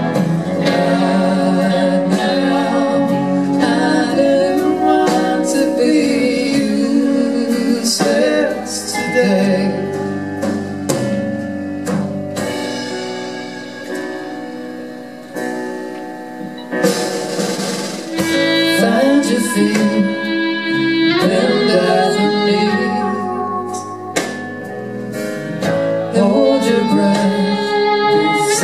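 Live band playing a pop-rock song on piano, electric guitars and drums, with singing. It drops quieter about halfway through and then builds back up.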